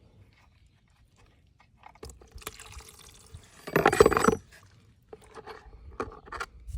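Transmission fluid splashing and pouring, loudest in one short gush about four seconds in, among scattered small clicks and knocks.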